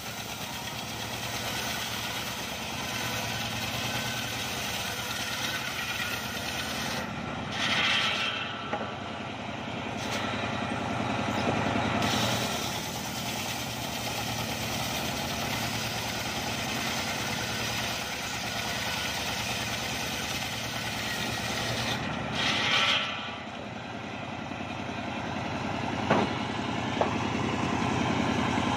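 A homemade engine-driven circular sawmill runs steadily as its large blade rips a mahogany log lengthwise. The engine note holds steady, and the sound turns briefly louder and hissier twice, about a quarter and three quarters of the way through.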